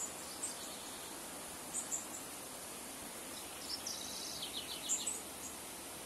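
Shallow river running over stones in a steady rush, with scattered high chirps from small birds and a short rapid trill about four to five seconds in.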